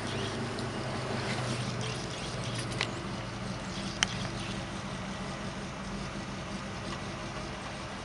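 Engine of a 1956 Ford F-100 idling steadily, heard from inside the cab, with a sharp click about four seconds in.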